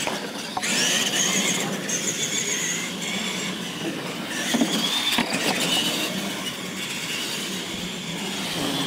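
Radio-controlled monster trucks' electric motors and gearboxes whining at full throttle, the pitch rising and falling as the drivers work the throttle and steer, with tyre noise on concrete.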